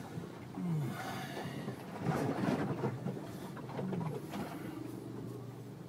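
Vehicle running, heard from inside the cabin, a steady rumble with a few short, low sliding sounds.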